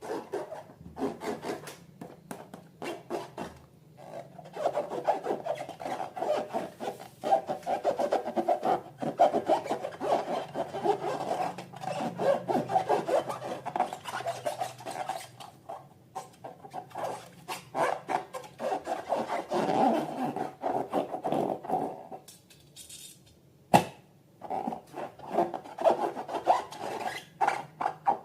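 Rubber balloons and slime being squeezed and rubbed by hand: a dense, rapid rubbing and squeaking, with a brief lull and a single sharp click near the end.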